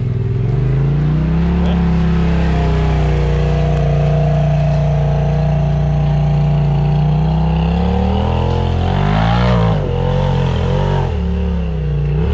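Off-road vehicle engine climbing in revs over about two seconds, then holding a steady pitch under load. Near the end it revs up again and wavers up and down with the throttle.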